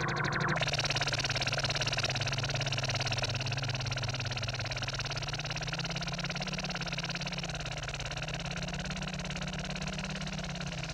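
Light helicopter's engine and rotor running steadily, a pitched drone with a fast regular pulse. The pitch rises slightly in the later part.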